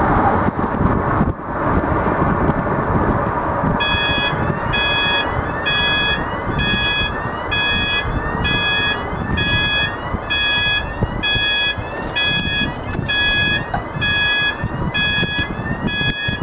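Level-crossing warning alarm that starts about four seconds in: an electronic tone that rises and then holds, repeated a little more than once a second, warning that the barriers are about to come down. Underneath it is a steady rumble of road traffic.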